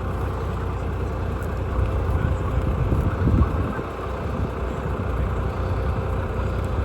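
Vehicle engine running while driving, a steady low rumble that swells briefly about three seconds in.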